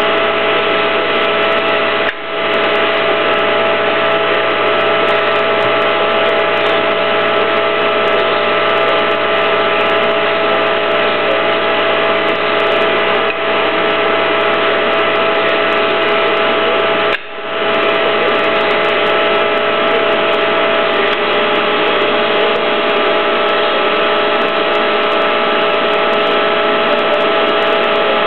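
Motor and hydraulic pump of a pipe and tube bender running steadily, a dense mechanical noise with a whine of several steady tones. The level dips briefly twice, about two seconds in and again around seventeen seconds in.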